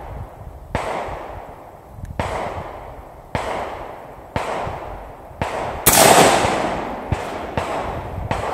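AR-15 semi-automatic rifle fired shot by shot, one crack per trigger pull, each with a trailing echo. The shots come roughly a second apart at first, then louder and quicker from about six seconds in.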